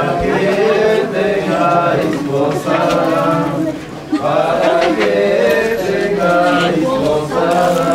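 Voices chanting or singing a slow, held melody together, phrase after phrase.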